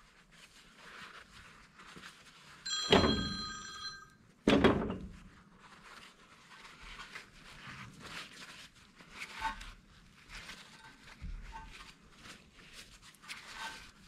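A shop towel rubbing and rustling as lapping compound is wiped off a small-engine valve, with light handling clicks. About three seconds in, a metal clank rings for about a second, and a second knock follows shortly after.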